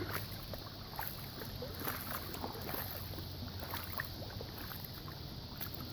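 Faint floodwater moving: a low steady wash with many small scattered trickles and splashes.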